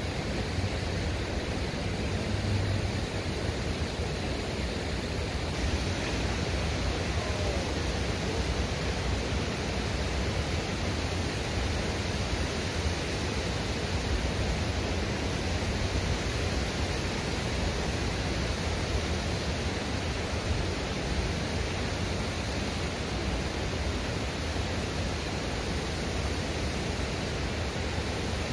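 Steady rushing of nearby river rapids, an even noise without breaks.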